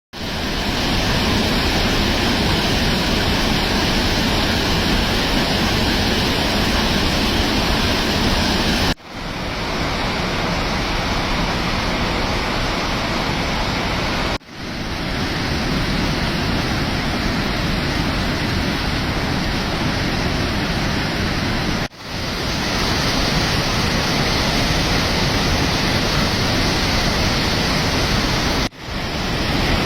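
Waterfall, a loud steady rush of falling water. It drops out for a moment about four times and fades straight back in.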